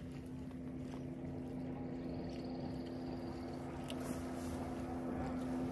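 Boat motor running at a steady pitch, a low even hum that grows slightly louder.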